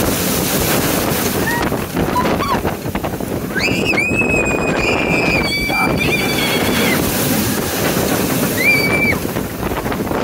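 Wind rushing over the microphone on a fast-moving roller coaster. A rider gives a long, high scream from about a third of the way in, then a short one near the end.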